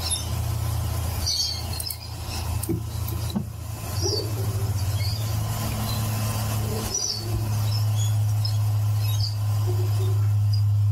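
Stepper motors of a Sooway SW200 3D printer humming as it homes all axes: a low, steady drone that changes character a few times and settles into a steadier, slightly louder hum in the last few seconds. Birds chirp in the background.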